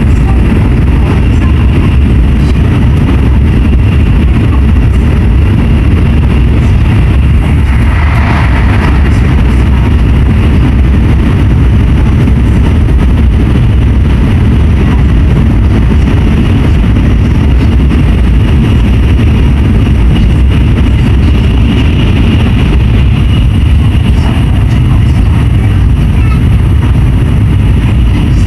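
N700S Shinkansen train running, heard inside the passenger cabin: a loud, steady low rumble of wheels on track, with a brief higher sound about eight seconds in.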